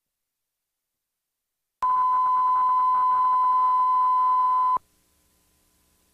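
Electronic line-up test tone at the head of a recording: one steady, loud, high beep held for about three seconds, starting about two seconds in and cutting off sharply, then faint hiss and hum.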